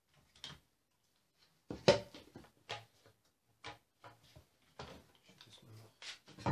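A handful of short wooden knocks and clatters as boards are handled on a workbench, the loudest about two seconds in.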